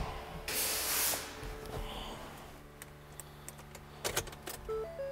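Freshly rebuilt Ford Transit 2.2 diesel engine idling smoothly and quietly, a steady low hum, running well after its cracked piston was replaced. A brief rustle about half a second in, a few light clicks near four seconds, and background music with a simple melody coming in near the end.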